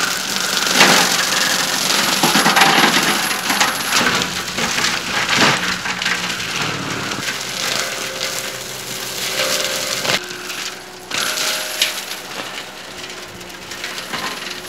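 Skid steer fitted with a forestry mulcher head shredding trees and brush: a steady dense machine noise with frequent sharp cracking and splintering of wood.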